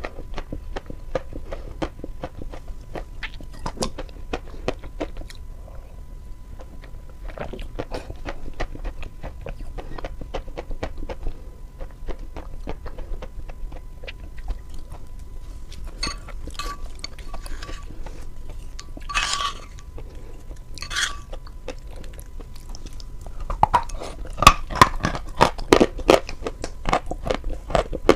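Close-miked chewing and crunching of sawn chalk with paste: a steady run of small crisp crunches and mouth clicks, with louder bites crunching near the end.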